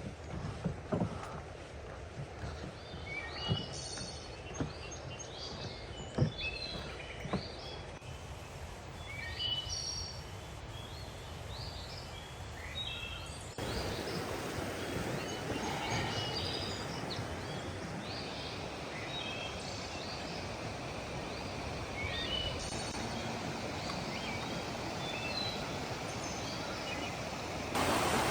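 Wild birds chirping in short, scattered calls over a steady outdoor hiss, with a few soft knocks in the first several seconds. The hiss steps up about halfway through and again just before the end.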